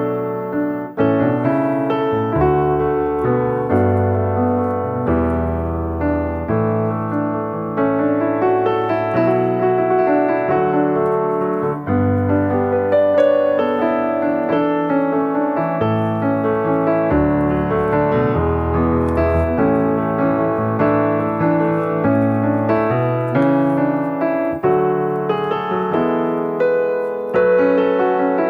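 Background piano music: sustained bass notes under a changing chord and melody line.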